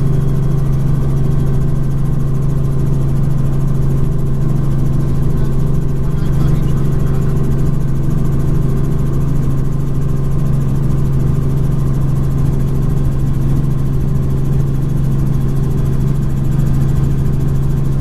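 Helicopter in flight: a steady, loud drone with a strong low hum and several fainter steady tones above it, unchanging throughout.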